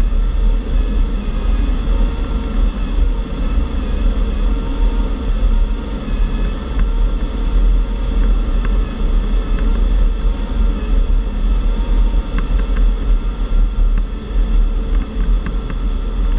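Steady rush of air over a G103 Twin Astir glider in flight, with heavy low wind buffeting on the microphone and a faint thin whistle in the airflow.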